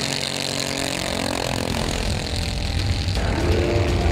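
Racing go-kart engines passing close by at speed, their pitch falling as they go past.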